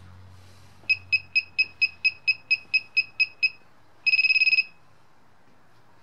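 The built-in buzzer of an Alexmos SimpleBGC joystick control box beeping: a string of about a dozen short, high beeps at roughly four a second, then a half-second rapid buzz. A faint low hum sits under the first beeps and fades out.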